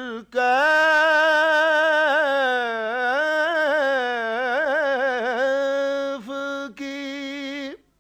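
Solo male voice singing an Urdu naat, drawing a long line out over sustained notes with wavering, ornamented pitch, broken by a few short breaths and stopping just before the end.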